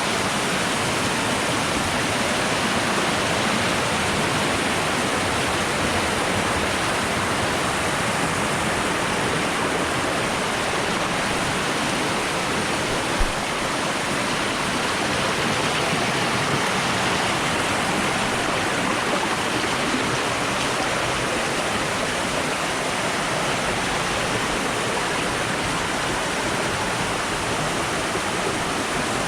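Steady rush of flowing water, an even wash of noise without change, with a single brief low bump about halfway through.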